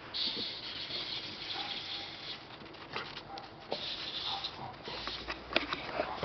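Crunchy steps in snow, with several sharp clicks from about halfway on.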